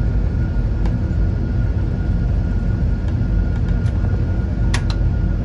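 Boeing 747-8 flight simulator's takeoff sound at rotation: a steady low rumble of engines at takeoff thrust and the runway roll, with a faint steady whine over it. A brief sharp click comes near the end.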